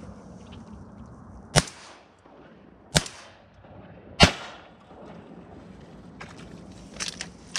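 Three shotgun shots from a Winchester SX4 semi-automatic shotgun, fired just over a second apart, each with a short echo trailing off. Faint rustling near the end.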